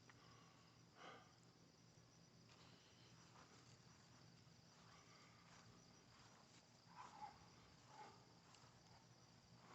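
Near silence: a faint steady hum with a few faint, brief sounds about a second in and near the end.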